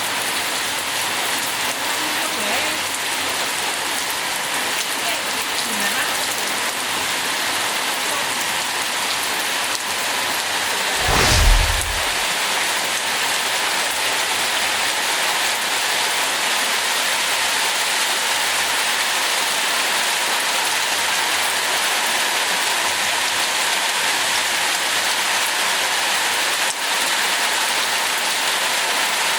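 Heavy rain falling steadily in a continuous hiss. About halfway through there is a single brief low boom.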